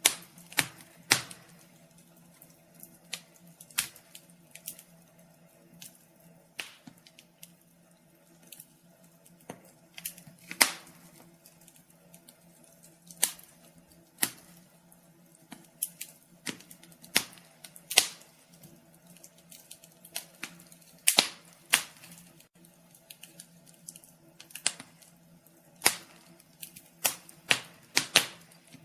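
Wood fire crackling in a fireplace: irregular sharp pops and snaps, a few a second at times with gaps between, over a faint steady low hum.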